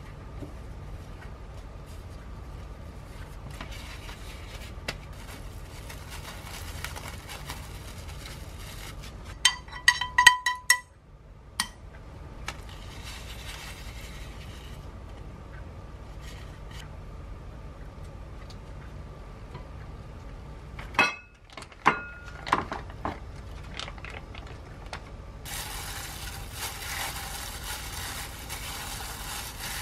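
Kitchen prep sounds around a glass mixing bowl. About ten seconds in comes a quick run of ringing clinks on the glass, and a few more knocks with ringing come around twenty-one seconds in. Near the end there is a steady crinkly rustle as hands in plastic gloves mix mashed tofu in the bowl.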